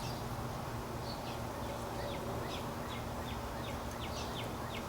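A faint string of short, quick bird chirps, each falling in pitch, about three a second, over a steady low room hum.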